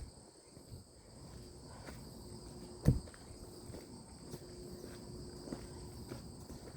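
Steady high-pitched insect chorus running without a break, with a single low thump about three seconds in.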